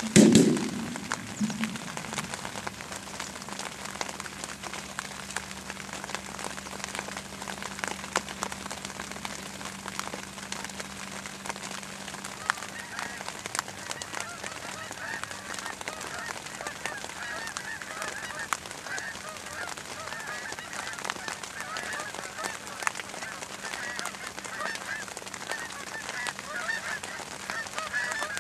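A loud thump right at the start, then from about twelve seconds in a flock of geese honking overhead, many overlapping calls that keep on to the end.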